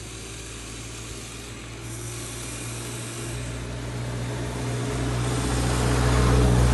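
Electric motors and gearboxes of an RC toy excavator whirring as its upper body slews round and the boom and arm move, growing louder toward the end.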